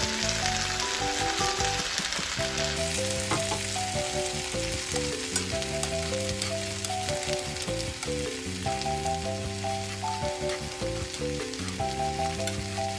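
Beaten egg sizzling in a hot oiled frying pan alongside komatsuna, poured in and then stirred with chopsticks as it sets into scrambled egg. The sizzle is strongest in the first couple of seconds, then settles to a steady frying hiss.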